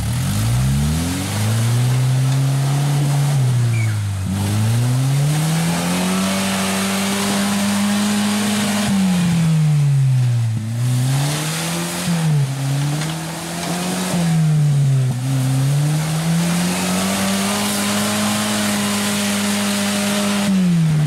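Suzuki Vitara 4x4 driving through deep mud, its engine revving hard and dropping back several times as the driver works the throttle. The tyres churn and spray mud, which gives a steady hiss under the engine.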